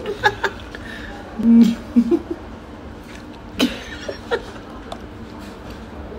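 A woman giggling in a few short bursts about one and a half to two and a half seconds in, then a sharp click and a couple of lighter ticks, over a faint steady hum.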